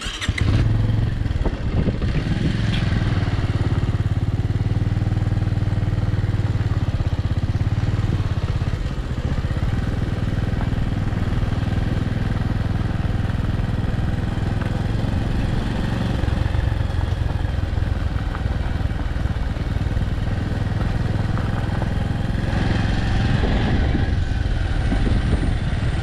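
A vehicle engine running steadily while travelling on the road, a low even hum with road noise over it, cutting in sharply at the start.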